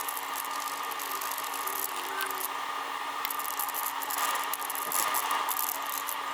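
Faint light scraping and rattling of an Allen key working a bolt on a metal hood strut bracket, over a steady background hum.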